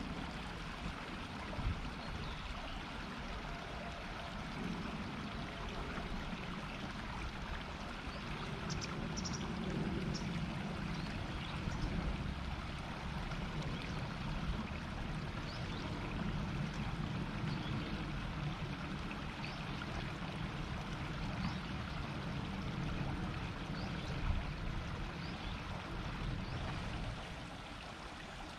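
River water murmuring steadily: a continuous rush of flowing water with a deeper gurgle underneath, easing slightly in level shortly before the end.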